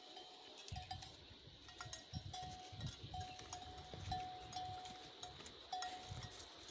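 A neck bell on a grazing water buffalo clanking irregularly as the animal moves, each strike ringing briefly on one tone. Low rumbling runs underneath.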